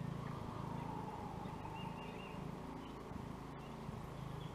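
A few faint, brief bird chirps over a low steady hum.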